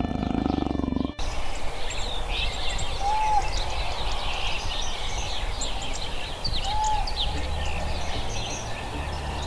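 A big cat's low growl for about the first second, then a sudden cut to woodland birdsong: many birds chirping together, with a clear, level whistled note twice.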